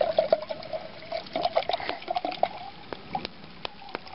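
Water being poured into a camping measuring cup, a gurgling, splashing stream that thins out about two and a half seconds in to a few scattered drips.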